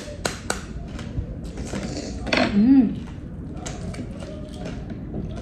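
A metal utensil tapping on the shell of a balut (boiled fertilised duck egg) to crack it. There is a quick run of sharp taps, about four a second, in the first second, then a few softer taps later on.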